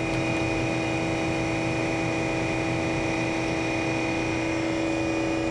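Harig EZ-Surf CNC surface grinder running with a steady hum and a few constant tones, its spindle turning: nice and quiet.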